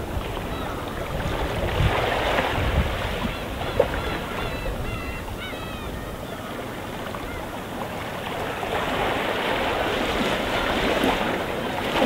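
Gentle sea waves washing in, swelling a couple of times, with a flock of gulls calling faintly.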